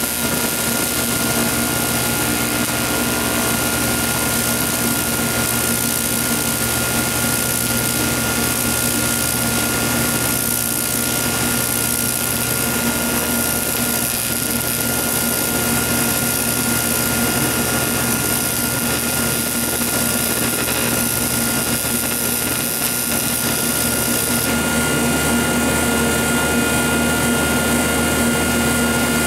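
AC TIG welding arc on aluminum during a weld pass: a steady buzzing hiss with a constant whine running under it.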